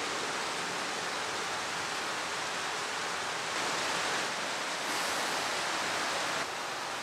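Steady hiss of rain falling, shifting slightly in level a few times.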